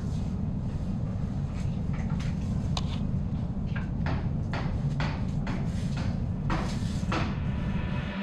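A steady low rumble with about a dozen light clicks and knocks scattered irregularly through it, like small objects being handled.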